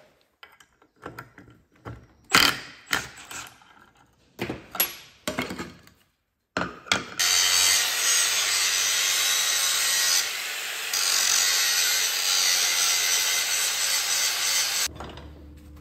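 Angle grinder grinding a chamfer into the end of a sheared steel shaft, running steadily for about eight seconds with a brief dip partway, then stopping. Before it starts, a string of knocks and clatters.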